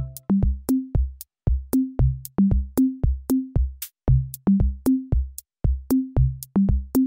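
Background music: a steady electronic drum-machine beat of bass drum and low pitched drum hits, roughly four a second, with no melody over it.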